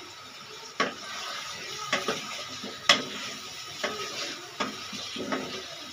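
A wooden spatula stirs chunks of kachalu through frying masala in a non-stick wok, knocking sharply against the pan about once a second, over a steady sizzle.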